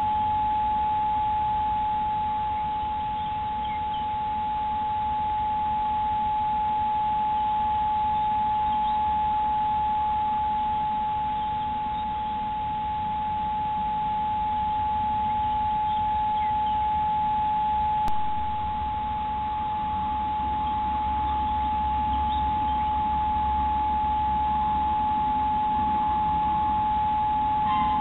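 A steady high electronic whine, one pure tone with a fainter lower one beneath it, held without change over a low hiss: the camera's own circuit noise. A single click about 18 seconds in.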